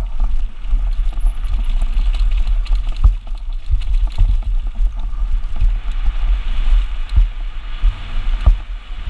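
Wind buffeting an action camera's microphone and tyres rumbling over a dirt trail on a fast downhill mountain-bike descent, with sharp knocks from bumps about three, seven and eight and a half seconds in.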